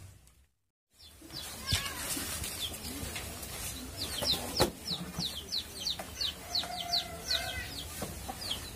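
Birds chirping in quick, repeated short notes, with some clucking, after a second of silence at the start. A couple of sharp knocks sound among them.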